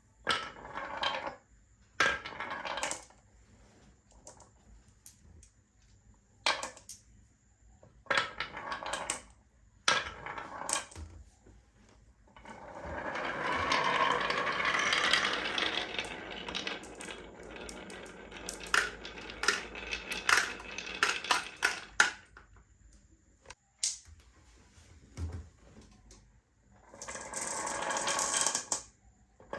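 Marbles running through a marble run: sharp clicks and knocks as they drop and strike the track, and a long rolling rattle of marbles running down a chute from about twelve to eighteen seconds in, with a shorter one near the end.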